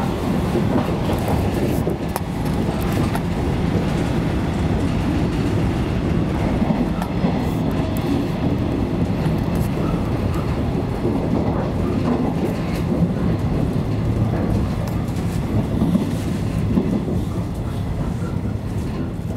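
Interior running noise of a JR West 115 series electric train: a steady rumble of wheels on rail, with a few faint clicks.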